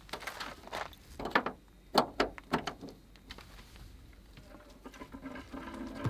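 A series of light knocks and clicks, about one every half second for the first three seconds, then fainter and sparser.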